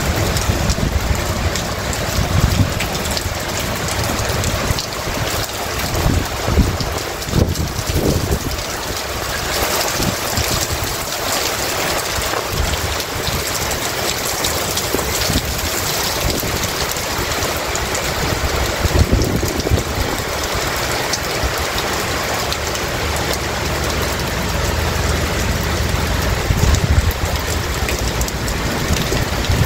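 Heavy rain pouring down in a steady, loud hiss, with irregular low rumbles throughout.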